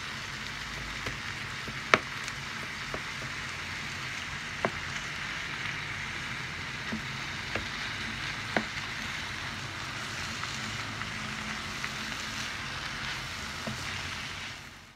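Raw minced beef with chopped leeks, onions and peppers sizzling in a wide frying pan as it is stirred and broken up with a wooden spoon. A few sharp ticks of the spoon against the pan stand out, the loudest about two seconds in. The sound cuts off suddenly at the end.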